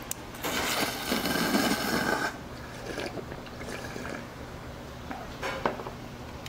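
Eating sounds: a noisy slurp or chew lasting about two seconds, followed by a couple of short, sharp clicks near the end.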